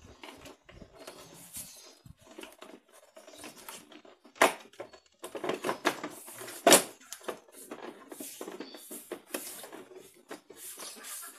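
Hands pressing and rubbing the plastic front cover of a Honda Vario scooter, with scattered clicks and rubbing of plastic on plastic. Two sharper knocks come in the middle.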